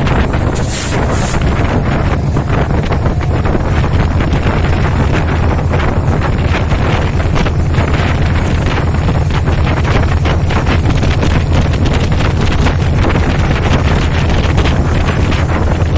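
Meter-gauge passenger train running through at speed, a steady loud rumble with wheels clattering over the rails, and wind buffeting the microphone.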